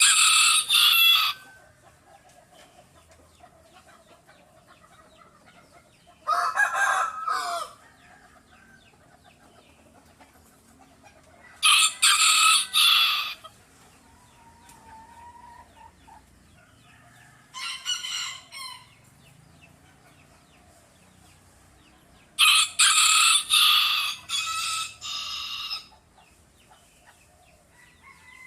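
Roosters crowing: five loud crows about five to six seconds apart, the last the longest, with faint clucking between them.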